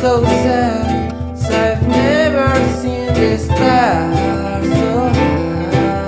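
Background song: a singing voice over strummed acoustic guitar.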